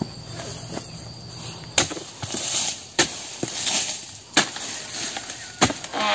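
A dodos, the chisel-bladed harvesting tool, is jabbed into the bases of oil palm fronds to cut them. It gives four sharp knocks, about one every second and a quarter.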